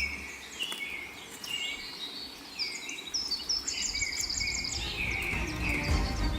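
Several birds chirping and calling with many short quick notes, and a rapid trill in the middle. A low rumble comes up near the end.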